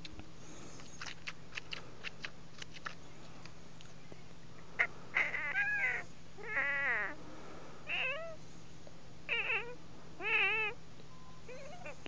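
Teeth rubbed and squeaked together to mimic a cat: faint clicks, then from about five seconds in a series of about six short, wavering meow-like squeals.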